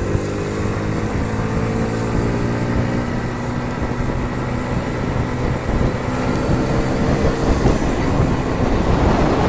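Honda Super Cub 50's small single-cylinder four-stroke engine running under way, its note sinking a little and then holding steady. Wind rushes over the microphone, building near the end.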